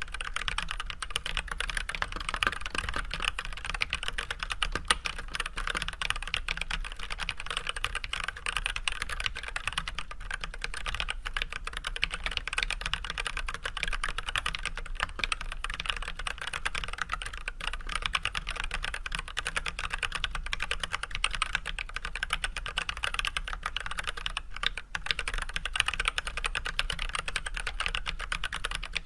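Continuous typing on an Archon AK87 mechanical keyboard fitted with Everglide Red 67g linear switches (with switch films, unlubed) and white PBT keycaps: a dense, steady stream of keystroke clicks.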